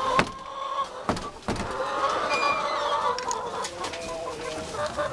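A flock of Rhode Island Red chickens clucking and calling, with some drawn-out calls, and a few knocks in the first second or so.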